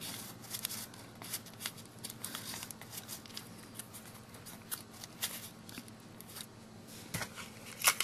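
Small strips of scrap paper rustling and crinkling as fingers press and fit them into a narrow gap, with scattered light taps and clicks, a few sharper ones near the end.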